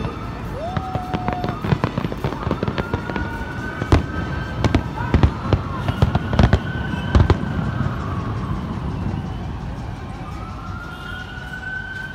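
Fireworks display: a rapid string of bangs and crackles, densest about four to seven seconds in and thinning out after about eight seconds, with long whistling tones that slowly rise and fall above them.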